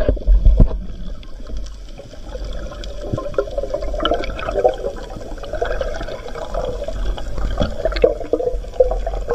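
Underwater water noise from a diver's camera: a rushing, bubbling wash over a low rumble, with scattered clicks, growing busier about halfway through as a speared cuttlefish is handled on the spear shaft.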